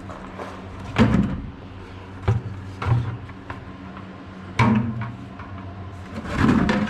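Clunks and knocks of equipment being moved about and set down, about five of them, the first and last the loudest. A steady low hum runs underneath.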